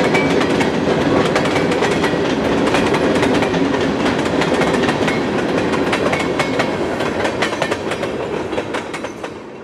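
Freight train of tank cars and covered hoppers rolling past: a steady rumble with wheels clacking over the rail joints, fading away near the end as the last cars go by.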